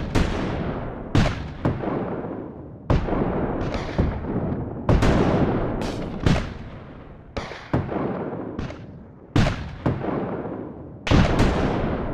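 Battle of cannon and musket fire: shot after shot at irregular intervals of about a second, each a sharp report followed by a long rolling echo that dies away before the next.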